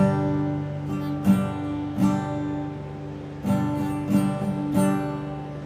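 Acoustic guitar strummed, chords struck at uneven intervals with the notes left to ring between strums; the strums come faster in the second half.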